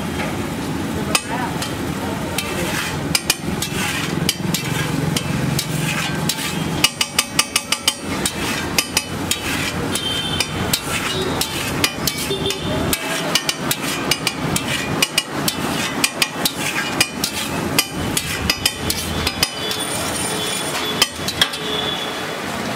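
Long flat metal spatula scraping and tapping on a large iron griddle as it spreads an egg mixture, with repeated sharp metal clicks and a quick run of rapid taps about seven seconds in.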